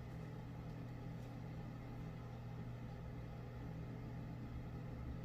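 A steady low hum with a faint hiss behind it, unchanging throughout, with no distinct knocks or clicks.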